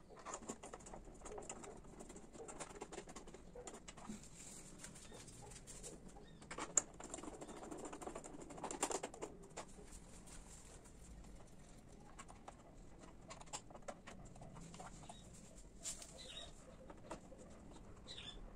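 Faint clicks and light knocks of small screws and hand tools being worked on a motorcycle's rear tail section, with two sharper knocks a few seconds apart midway. A bird calls faintly in the background.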